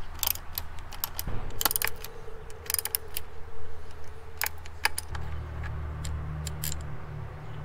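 Ratcheting wrench clicking in short quick runs as 12 mm bolts are loosened, fewer clicks in the last few seconds.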